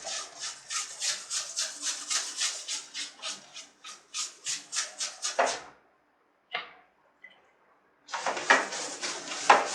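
A water-loaded brush scrubbing the blower wheel of a split air conditioner's indoor unit in quick strokes, about four a second, washing the dust off with plain water. The scrubbing stops for a couple of seconds after the middle and starts again near the end.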